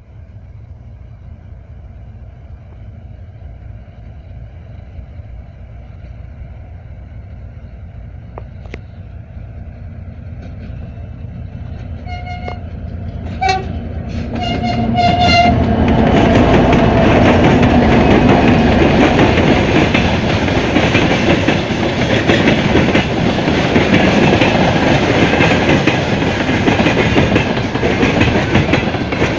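Two-section 2M62U diesel locomotive approaching, its two-stroke diesel engines growing steadily louder as it nears. About halfway through, the horn gives three short toots, a friendly greeting from the crew, and then the locomotive passes close with heavy engine noise and wheels clattering over the rail joints.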